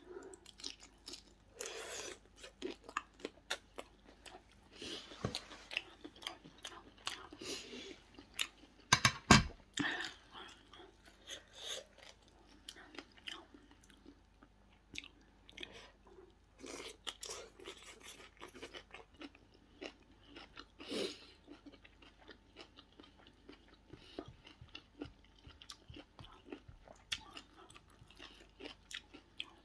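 A person chewing and crunching a shredded papaya-carrot salad with shrimp and squid, with many small clicks and taps of fingers and cutlery at the plate. One sharp, much louder knock about nine seconds in.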